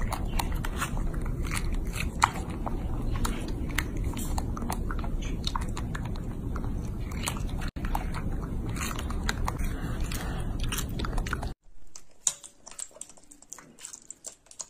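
Close-up biting and chewing of a baby macaque eating a fresh strawberry: wet, crunchy clicks over a steady low rumble. The sound cuts off sharply near the end, leaving only faint scattered clicks.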